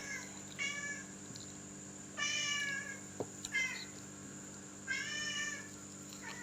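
A domestic cat meowing four times, the longest and loudest meow about two seconds in.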